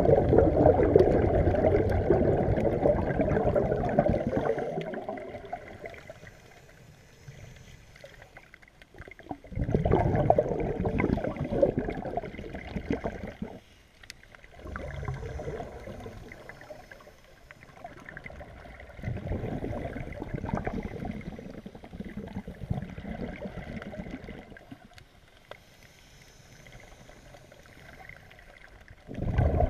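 Scuba diver's exhaled bubbles from the regulator, heard underwater as a rumbling, crackling rush. It comes in surges a few seconds long, one for each breath out, about five times, with quieter gaps between.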